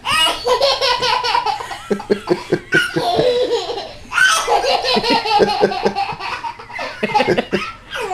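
A toddler laughing hard in rapid, high-pitched belly laughs, with a lull between about two and four seconds in.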